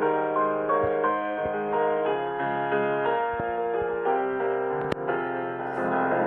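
Soft instrumental piano music, sustained notes changing every half second or so.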